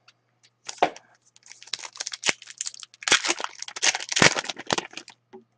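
Foil wrappers of trading card packs crinkling and tearing as they are opened by hand, in irregular bursts.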